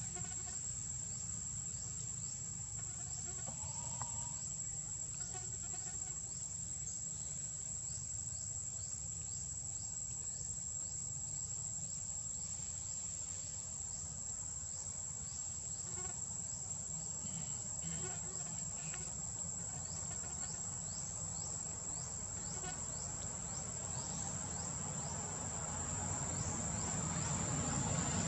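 Steady high-pitched drone of forest insects, one unbroken tone, with a few faint short calls; a low rumble builds near the end.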